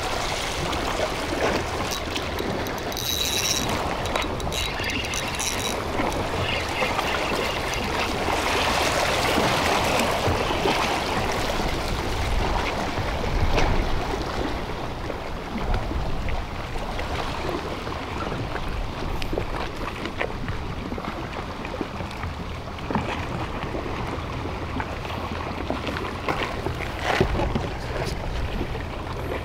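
Sea water washing and lapping against a concrete breakwater, a steady watery wash that swells for a few seconds in the middle.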